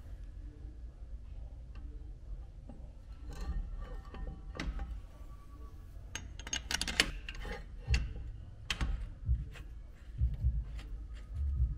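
A Brembo big-brake caliper and its mounting hardware being handled and fitted over the brake rotor by hand: scattered metallic clicks and knocks, with a few dull thumps in the later half.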